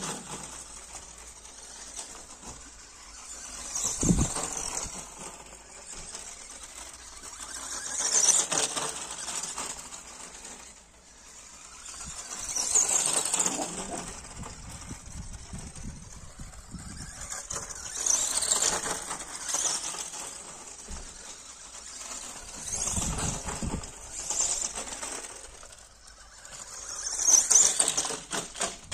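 Tamiya Montero radio-controlled truck's electric motor and gears whirring as it drives through grass, in repeated bursts that swell and fade about every four to five seconds. There is a low thump about four seconds in.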